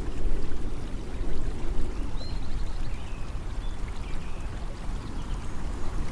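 Steady rushing of flowing water, heaviest in the low range, with a few short high chirps over it.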